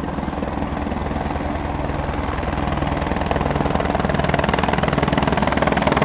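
AS355F2 Twin Squirrel helicopter with its twin turbines and rotor beating in low flight close by. The rotor beat grows steadily louder as it comes nearer.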